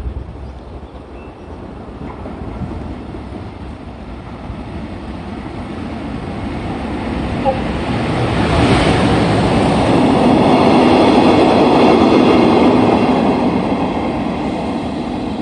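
Freight train passing through at speed: the rumble of wheels on rail grows steadily louder over about ten seconds, peaks, and begins to ease near the end.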